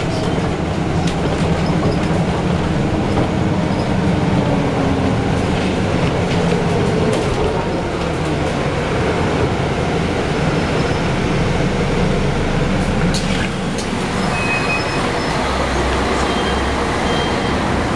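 MAN NG363F articulated city bus heard from inside, engine and drivetrain running with a steady low rumble and a whine that shifts in pitch. About three-quarters of the way through there are a couple of sharp clunks, after which a lower steady hum takes over, with a few short high beeps.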